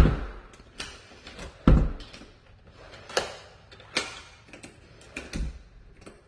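Patio door being pushed at to close it: several heavy thuds of the door against its frame, with sharper clicks of the latch in between. The door is sticking and not latching.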